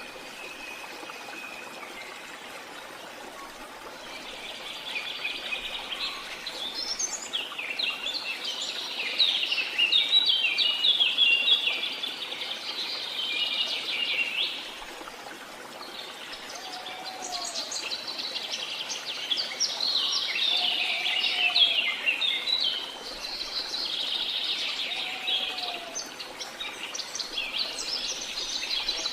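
A chorus of birds chirping and trilling in bouts that swell and fade, over the steady rush of a jungle waterfall. A few short, lower calls repeat in the second half.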